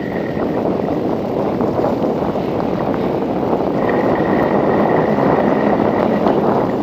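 Wind rushing over the microphone of a camera riding on a bicycle, with tyre noise from the dirt road, growing a little louder. A faint high whine sounds at the start and again from about four seconds in.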